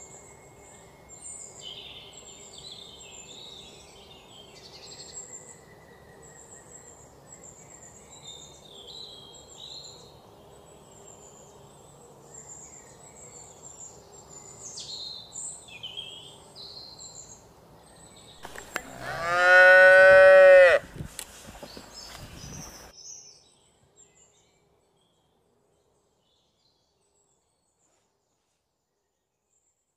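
A cow moos once, a long, loud call lasting about two and a half seconds, rising and then falling in pitch, after a stretch of faint bird chirping. The sound cuts out entirely a few seconds after the moo.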